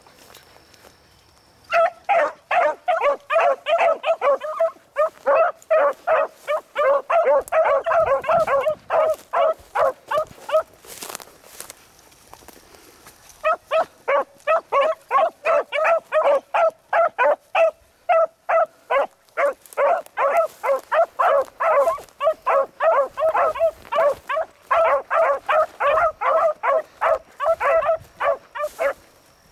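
A pack of beagles barking rapidly, a few barks a second, as they run a track through brush: hounds giving voice on the scent. The barking breaks off for a couple of seconds near the middle, then picks up again.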